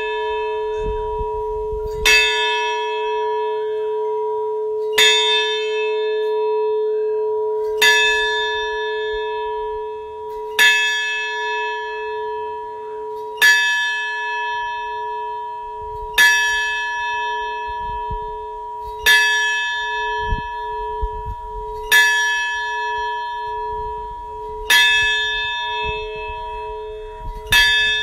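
A large bell in a stone bell tower tolling slowly, about one stroke every three seconds. Each stroke rings bright and fades, while a deep hum carries on between the strokes.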